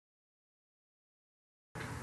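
Dead digital silence, then steady room tone with a low hum cutting in abruptly near the end as the recording's audio begins.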